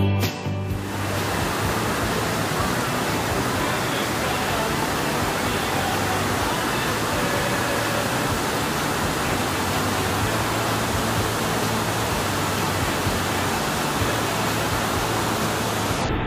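Steady roar of a large waterfall, a dense, even rush of falling water. Music fades out about a second in, leaving the roar alone.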